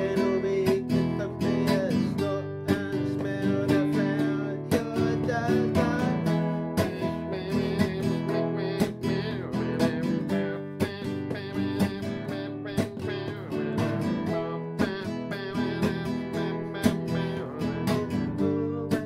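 Background music led by a strummed acoustic guitar with a steady beat.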